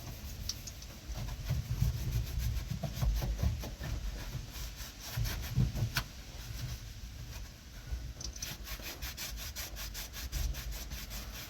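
Hand scrubbing, rubbing a surface clean with quick back-and-forth strokes, several a second. The strokes come in steadily about eight seconds in, after scattered handling noises and a knock about six seconds in.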